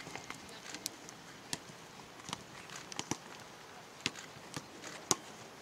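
Footballers' footsteps, irregular sharp taps as players jog past, over a steady hiss of background noise.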